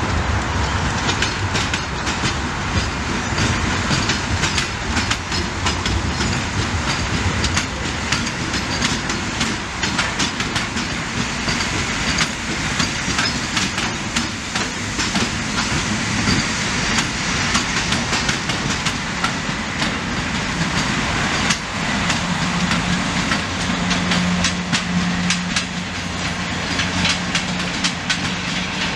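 Electric passenger trains passing at speed: a steady rail rumble with wheels clacking over rail joints and many sharp clicks. About three-quarters of the way through, a low steady hum sets in as a train of white coaches goes by.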